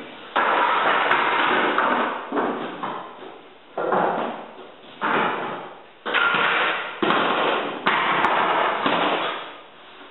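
Loose hardwood flooring boards being slid and set down while racking out: a series of scraping clatters, each starting sharply and fading over a second or so, about seven in all.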